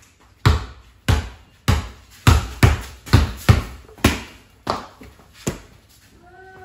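A basketball dribbled on a concrete garage floor: about ten sharp bounces at roughly two a second, coming a little faster in the middle.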